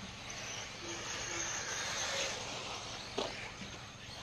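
Electric 1/8-scale RC buggies running around a dirt track, with a steady high chirping of night insects behind them. A single sharp click about three seconds in.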